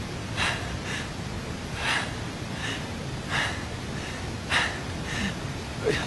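A man panting hard in short, uneven gasping breaths, over a steady hiss of heavy rain.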